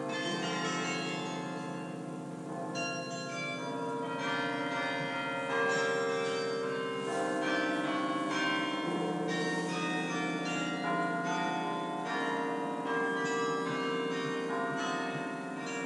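The Bok Tower carillon playing a melody in chords. Many bronze bells are struck in turn, and each note rings on under the next.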